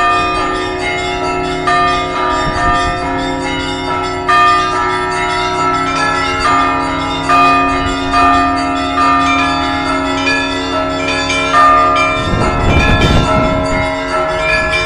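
Church bells ringing in a full peal: many bells of different pitches struck in quick, overlapping succession, their tones ringing on. A low rumble joins in near the end.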